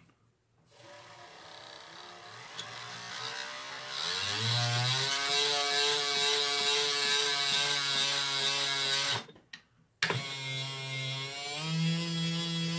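Car window-lifter gear motor driving a mini mill's lead screw through a simple pin-and-slot clutch, running with a geared whine. It gets louder about four seconds in, stops near the end, then restarts abruptly a second later, its pitch rising and falling.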